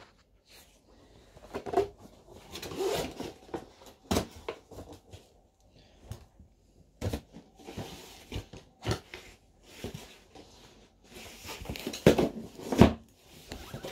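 Hard plastic and metal hand-pump parts being lifted out of a cardboard box and set down, with scattered knocks and clacks and some rustling of packaging. The loudest knocks come near the end.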